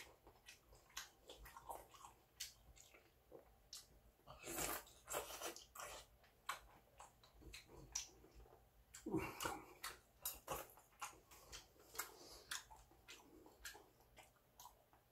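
Faint sounds of a man eating seonji-guk (ox-blood soup) with a spoon: chewing and many small clicks, with two longer, noisier sounds about four seconds in and again about nine seconds in.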